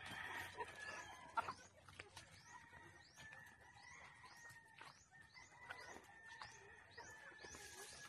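Faint flock of young chickens foraging, with soft calls and a short high rising chirp repeated about twice a second through the second half. A single sharp knock comes about a second and a half in.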